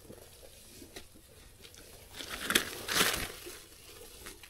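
Dry leaf litter rustling and crunching as a gloved hand parts it on the forest floor, in two short bursts a little past the middle.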